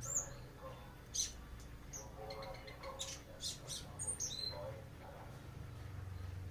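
Kept songbirds singing a string of short, high chirps and whistled notes, one after another, over a low steady hum.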